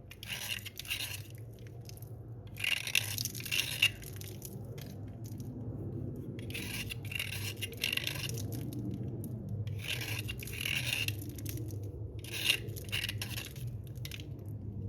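Slate pencils scraping and rubbing in about six gritty strokes of a second or so each, over a steady low hum.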